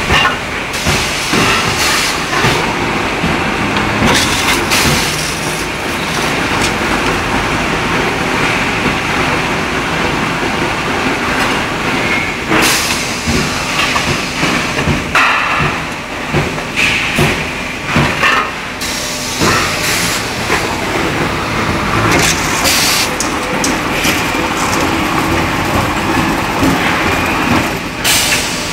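Sheet-metal edge-trimming and beading machine running, with steady mechanical noise and frequent sharp metallic clicks and knocks as round sheet-metal pieces are worked.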